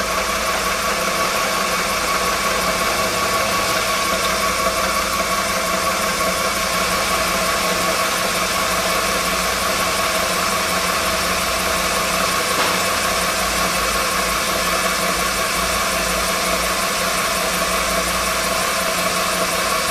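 Vertical milling machine running steadily with an end mill in the spindle: an even motor hum with a steady whine over it, unchanging throughout.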